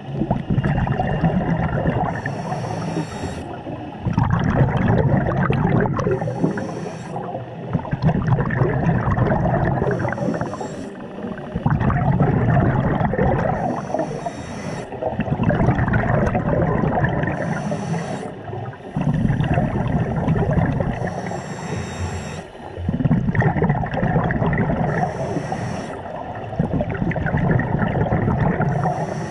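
Scuba diver breathing through a regulator underwater: a short hiss of inhalation about every four seconds, each followed by a long bubbling exhalation, eight breaths in all.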